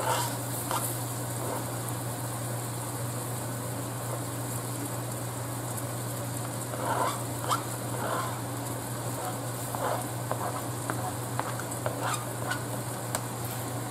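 Chopped celery, onion and bell pepper sizzling in a cast-iron skillet of dark roux, with short scrapes and taps of a fork pushing the vegetables off a plastic cutting board. A steady low hum runs underneath.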